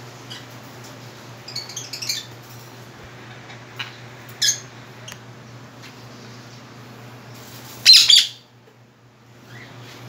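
Caged parrots calling: a few short, high chirps and squawks in the first half, then one loud, harsh squawk about eight seconds in, over the steady hum of a ceiling fan.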